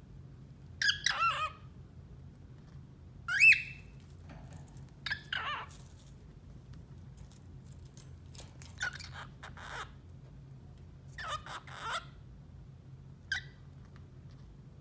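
Cockatiel chirping in short separate calls, about six in all, the loudest about three and a half seconds in.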